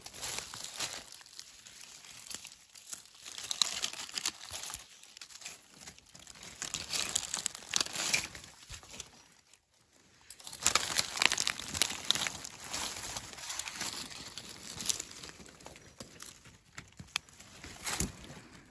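Dry leaf litter crackling and rustling under feet and hands in irregular bursts, as someone moves through it searching for mushrooms, with a pause of about a second halfway through.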